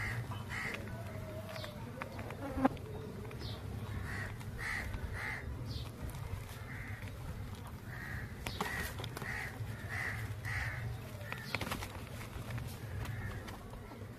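A bird calling outdoors in bouts of short, evenly spaced calls, about two a second, with a steady low hum underneath and a few faint clicks.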